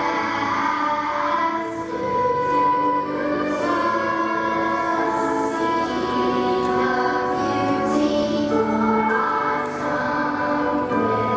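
Children's choir singing, with long held notes.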